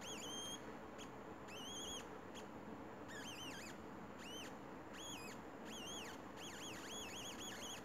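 Squeaky electronic chirps from a laptop speaker, produced by a piezo element wired into a 3.5 mm TRRS sensor module that feeds the laptop's microphone input. The short warbling tones rise and fall around one pitch, come irregularly and grow more frequent near the end. The maker believes they come from the piezo's resistance changing.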